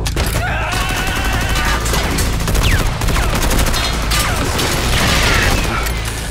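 Sustained rapid automatic gunfire, a dense stream of shots striking a metal-armoured cyborg. Film music plays underneath.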